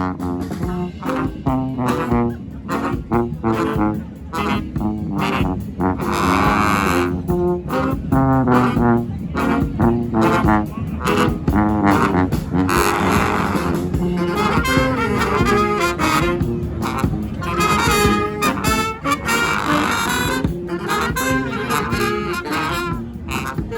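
Street brass band playing live: horns playing together over a steady beat, with several long held notes.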